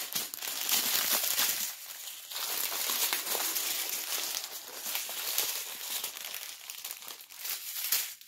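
Thin plastic drill bags from a diamond painting kit crinkling as they are handled, in irregular rustling stretches with a short lull about two seconds in.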